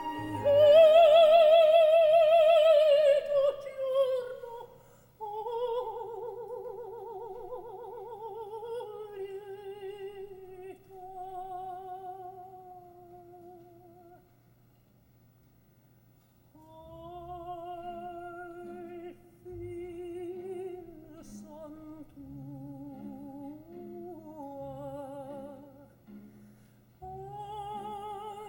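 Coloratura soprano singing opera with a wide vibrato: a loud held high note that falls away at the start, then softer phrases, broken by a brief pause midway.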